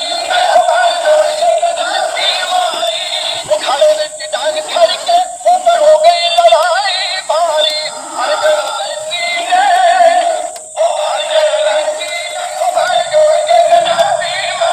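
Background music with a singing voice that sounds electronically processed, the melody full of quick wavering, bending runs. The sound is thin, with almost no bass.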